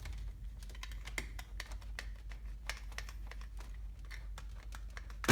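Irregular small plastic clicks and ticks from wiring harness connectors and wires being handled, with one sharp, louder click near the end.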